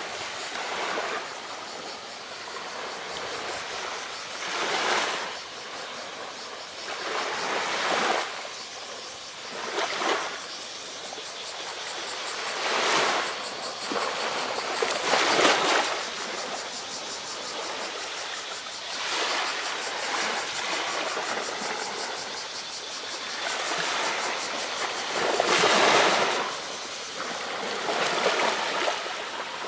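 Small ocean waves breaking and washing up on a sandy beach, one surge every two to four seconds.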